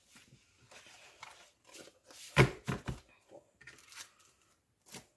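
Sheets of scrapbooking paper being shuffled and moved, a series of short rustles with a sharper thump about halfway through as a stack is shifted.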